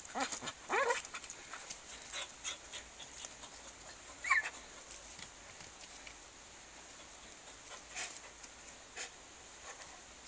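Hunting dogs whining and yelping excitedly at a log where they have a mink cornered, in a few short calls with the loudest yelp about four seconds in. There is some panting and rustling between the calls.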